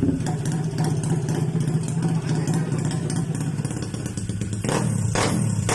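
RS 125 motorcycle engine running steadily at idle. Near the end, a run of short, sharp noisy pulses starts, about two a second, and the sound gets a little louder.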